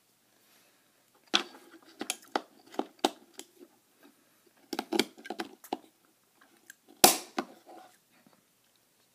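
Clicks and knocks of hands handling the batteries and plastic battery pack of battery-powered copper lights while the batteries are swapped around, in three bursts, the loudest knock about seven seconds in.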